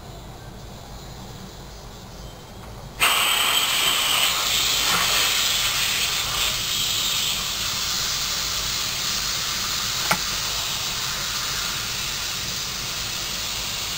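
Air hissing out of a 30-inch latex balloon. It starts suddenly about three seconds in, then runs steadily and slowly eases. There is one sharp click about ten seconds in.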